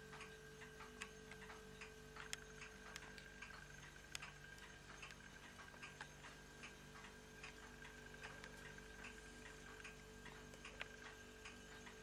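Near silence: faint, irregular light ticks and clicks, a few a second, over a steady low hum.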